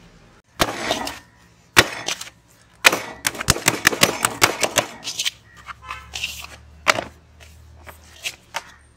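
Pizza dough being kneaded and pressed in a large aluminium bowl: a quick run of sharp knocks and slaps of hands and dough on the metal bowl, thickest about three to five seconds in.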